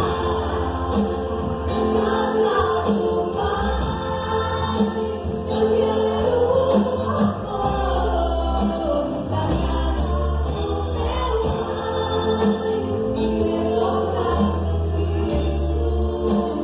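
Gospel song performed by a band, with several voices singing together over a steady bass line.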